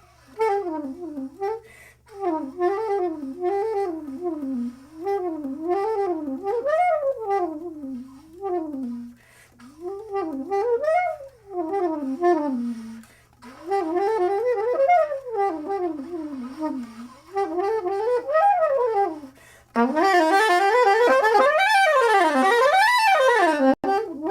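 Soprano saxophone improvising fast up-and-down runs in short phrases separated by brief pauses. About twenty seconds in it turns louder and brighter for a sustained flurry of runs.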